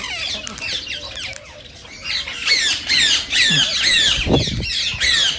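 Indian ringneck parakeets squawking in rapid, overlapping high-pitched calls, several birds at once. The calling dips briefly about a second and a half in, then comes back loud.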